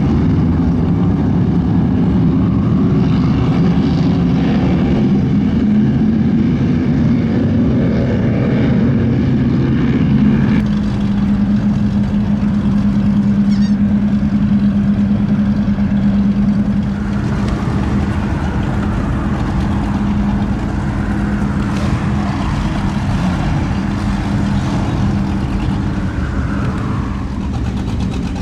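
Engines of several high-performance offshore powerboats (cigarette-style go-fast boats) running at speed, a loud, steady, deep drone with rushing water and wind. The engine note changes abruptly about ten seconds in.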